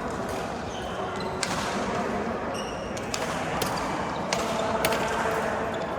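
Badminton rally: rackets striking the shuttlecock with sharp cracks every half second to a second or so, and a short shoe squeak on the court about two and a half seconds in.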